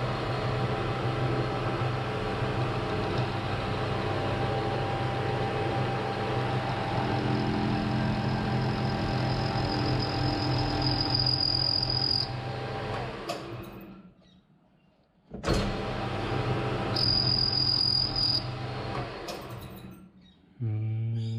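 Metal lathe running steadily while the second side of a hex on a steel hydraulic fitting is chamfered, a high thin whine rising twice over the hum. The sound cuts out abruptly about two-thirds of the way through and comes back a second and a half later.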